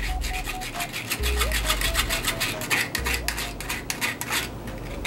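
Metal spoon scraping and rasping against a fine wire-mesh strainer in quick strokes, pressing juice out of clogged vegetable pulp. A light tune with low bass notes plays underneath.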